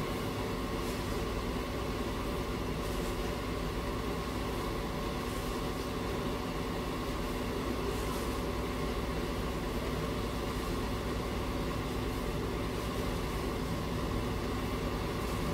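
Heavy construction machinery's diesel engine running at a steady idle, an even drone with no revving or change in pitch.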